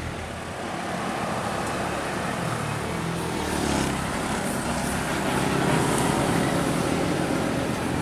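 Large tour bus driving past on a bend, engine and tyre noise as a steady rumble that grows a little louder toward the middle. No horn sounds.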